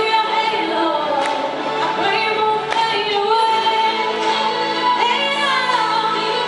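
Background music: a song with a female singing voice over instrumental accompaniment.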